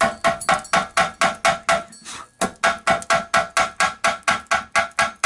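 A hammer striking a chrome motorcycle exhaust pipe at its rusted joint, about five blows a second, each with a metallic ring. The hammering pauses for about half a second two seconds in, then carries on at the same pace.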